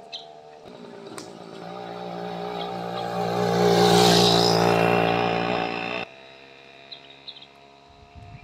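A motor vehicle passing close on the road, its engine and tyre noise swelling to a peak and then cutting off suddenly about six seconds in.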